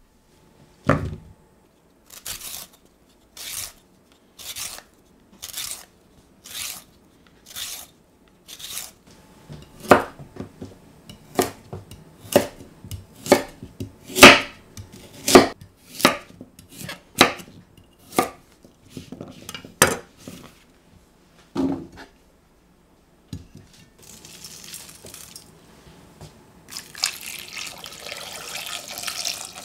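Parsnips peeled with evenly spaced strokes about a second apart, then chopped with a knife on a wooden chopping board, sharp knocks about one a second. Near the end, water poured from a jug into a stainless steel saucepan of chopped parsnip.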